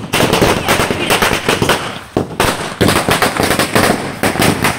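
A long string of firecrackers going off in a rapid, continuous crackle of sharp bangs, with a brief let-up about two seconds in.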